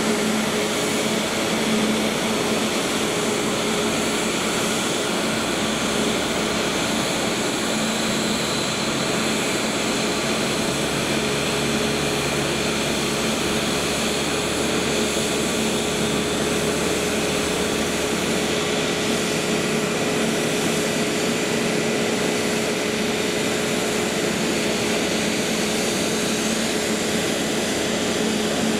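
Airbus A320neo airliner running steadily: a constant jet hum with two steady tones over a wide hiss, holding level throughout.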